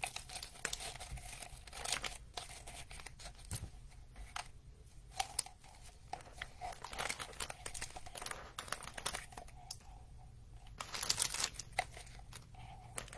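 Crinkling and rustling of red shred filler being pushed by hand into a clear plastic container, in irregular bursts, loudest near the end.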